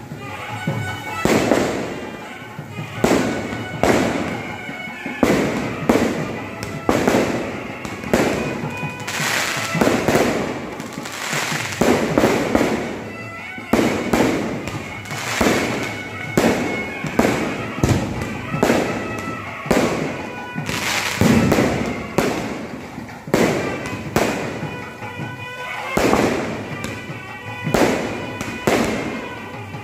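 Non-stop temple-festival fireworks: aerial shells bursting one after another, about one to two bangs a second, each trailing off before the next.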